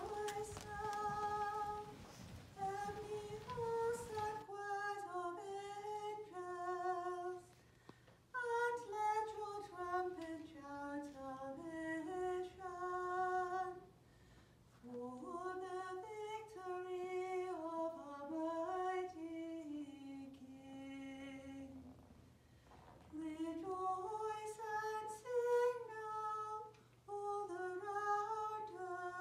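A single cantor chanting unaccompanied, singing the text in melodic phrases with short breaks between them, three of them longer: about a third of the way in, near the middle, and about three quarters through.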